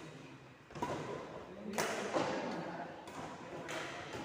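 A few dull thumps, roughly a second apart.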